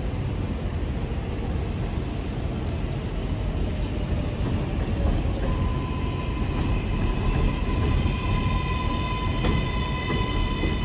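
New York City Subway 7 train running, a steady rumble of wheels on rail. A steady high whine comes in about halfway through, and several higher tones join it.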